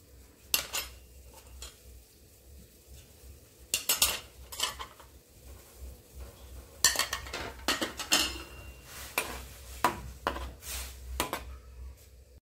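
Metal spoon clinking and tapping against a wok and other kitchen utensils as seasonings are spooned into the soup: about a dozen sharp clinks in irregular clusters, over a low steady hum.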